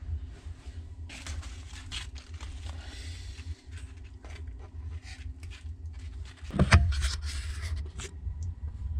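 Paper towel rustling and crinkling as a hand lifts it and pushes it aside, with one loud thump about two-thirds of the way through, over a steady low hum.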